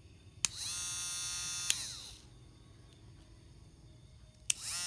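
Handheld electric rotary grinder (micro-grinder) clicked on and whining up to a high steady speed. It is clicked off after about a second and winds down, then clicked on again and spins up near the end.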